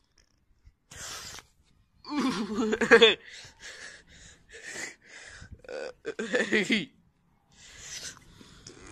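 A person's voice making breathy gasps, with two louder drawn-out vocal cries, about two seconds in and again about six seconds in, between short quick breathy bursts.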